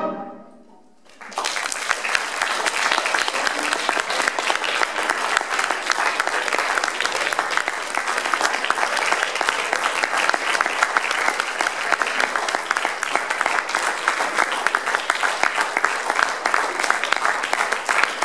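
The wind band's last chord dies away. About a second later, audience applause starts and carries on steadily.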